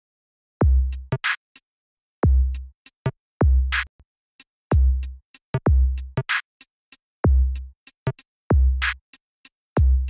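Electronic drum-machine beat with nothing else in the mix: deep kick drums that drop in pitch, a sharp snare or clap hit after most kicks, and light hi-hat ticks, with dead silence between the hits.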